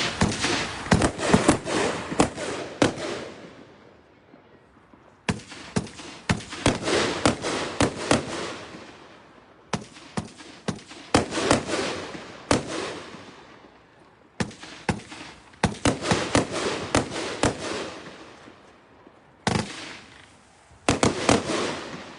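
A 20-shot 500 gram consumer fireworks cake firing. Sharp bangs and reports come in about six clusters of several seconds each, with lulls of about a second between them.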